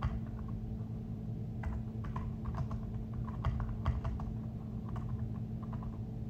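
Typing: a run of quick, irregular key taps from about a second and a half in, over a steady low hum.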